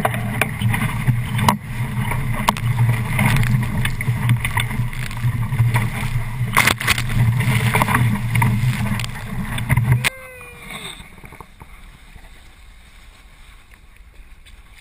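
Wind buffeting the microphone and water rushing and spraying past a beach catamaran under sail, with scattered knocks. The sound cuts off abruptly about ten seconds in, leaving a brief gurgle and then a much quieter rush of water.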